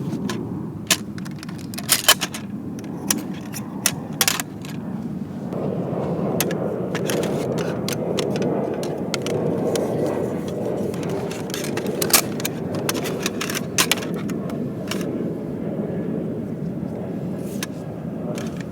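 Aluminium camp cookware clinking and scraping: a series of sharp metallic clicks, densest at the start and again past the middle. Underneath is a steady rushing noise that grows louder about five seconds in.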